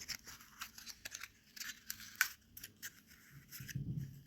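Small clicks, taps and short scrapes of hands handling the sewing machine's old incandescent bulb and its socket, the bulb being worked out of the lamp housing.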